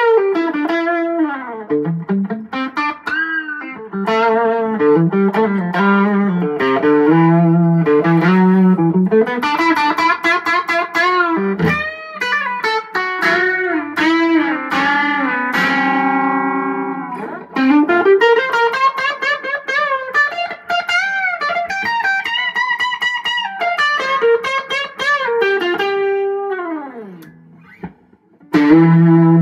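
Electric guitar with P-90 pickups played through a 15/5-watt Champ-style combo amp with two vintage Weber 12-inch speakers in a dovetailed pine cabinet: a single-note lead line with string bends and vibrato. It drops away briefly near the end before a last low held note.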